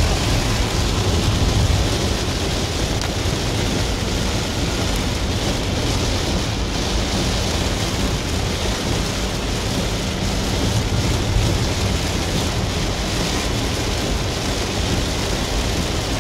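Heavy rain on a moving car and its tyres on a flooded freeway, heard from inside the cabin: a steady, even noise with a strong low rumble.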